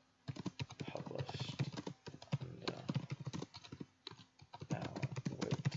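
Computer keyboard typing: quick runs of keystrokes with brief pauses about two and four seconds in.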